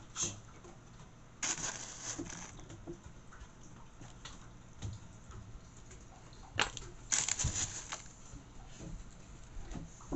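A spoon scooping crushed graham crackers and spreading them over soft jelly in a steel baking pan: scattered clicks and scrapes, with two louder rustling scrapes about a second and a half in and again about seven seconds in.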